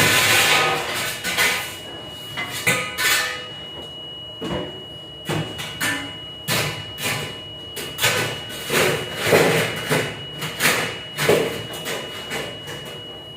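Dishes, trays and metal racks clattering and banging in a galley dishwashing area, with many sharp knocks at an uneven pace over a thin steady high whine, and a loud rushing hiss right at the start.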